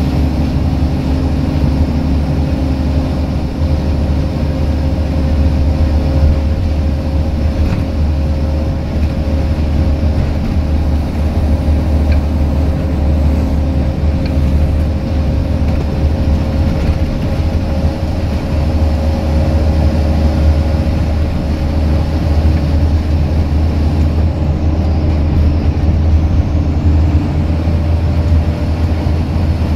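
Scania L94UB single-deck bus's rear-mounted five-cylinder diesel engine working hard at a steady pitch, heard from inside the passenger saloon: a deep, loud drone with a steady whine over it and road noise.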